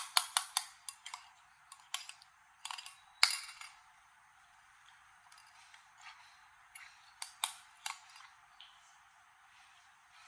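A fast run of sharp clicks, about six a second, that stops within the first second, then scattered clicks and taps of small hard objects being handled, the loudest a little after three seconds in.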